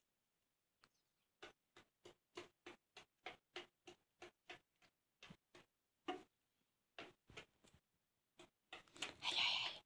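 Faint, light clicking taps of goat kids' small hooves on a hard dirt floor, about three a second, then more scattered. A louder rustling noise comes in near the end.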